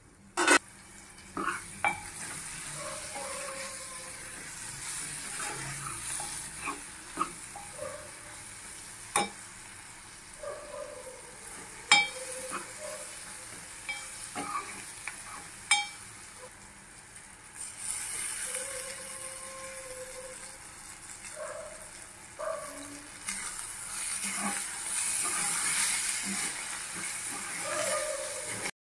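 Thick broad bean curry sizzling in a metal pot while a spoon stirs it, scraping the pot and knocking against its sides with a few sharp clinks. The sizzle grows louder near the end.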